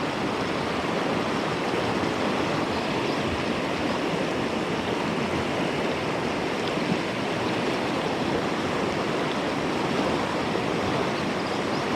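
Steady rushing of a mountain river running high with extra water after heavy rain.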